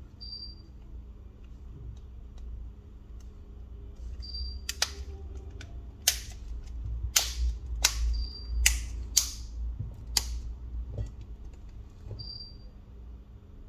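A run of about seven sharp clicks and snaps from handling a smartphone's parts, bunched within about five seconds in the middle, over a low steady hum. A short high beep sounds four times, spaced a few seconds apart.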